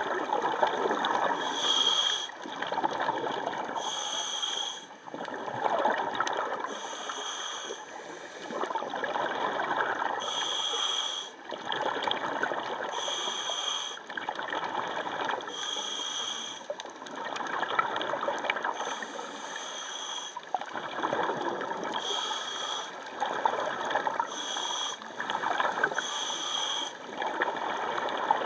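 Scuba diver breathing through a regulator underwater: a short hissing inhale with a high whistle, then a longer gurgle of exhaled bubbles, repeating about every two and a half seconds.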